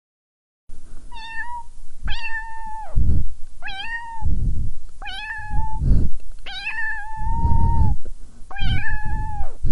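Domestic cat meowing repeatedly: six drawn-out meows, each with a quick rise at the start and then a held, level pitch. Bursts of low rumbling noise come between the calls.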